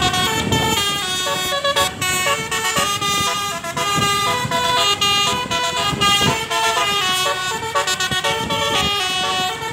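Bus telolet basuri horn, a multi-note musical air horn, playing a fast tune of stepped notes without a break.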